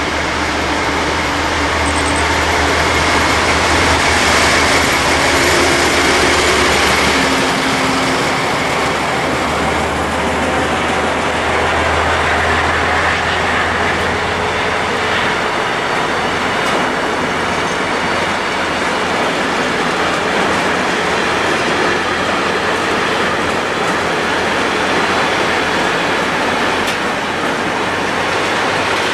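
Captrain Polska 311D-07, a Vossloh Euro 4000 diesel locomotive with an EMD two-stroke engine, passing with a low engine drone that fades after about twelve seconds. A long train of tank wagons follows, rolling by with steady wheel-on-rail noise.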